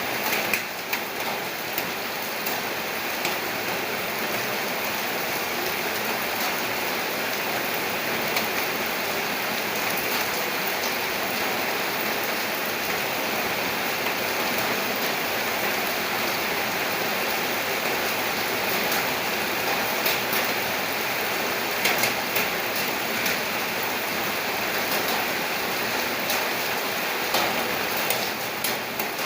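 Steady heavy rain falling, an even hiss of rain with individual drops ticking on a surface, a few louder drops about three-quarters of the way through.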